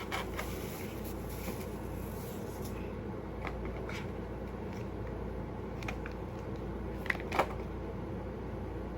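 Paper and packaging being handled: a few soft rustles and light clicks, with two sharper clicks about seven seconds in, over a steady background hum.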